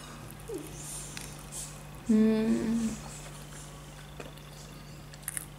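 A woman eating a crusted mozzarella bite hums a closed-mouth "mmm" of enjoyment for about a second, two seconds in, with faint clicks of chewing around it over a steady low hum.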